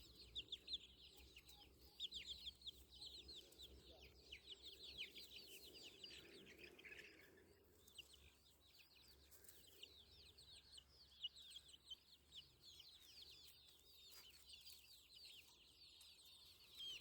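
A flock of desi chickens calling faintly: many short, high, falling peeps overlapping one another without a break.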